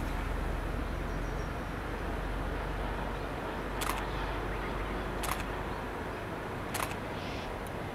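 Three sharp camera-shutter clicks about a second and a half apart, the first a few seconds in. They sit over a steady low outdoor rumble and hiss.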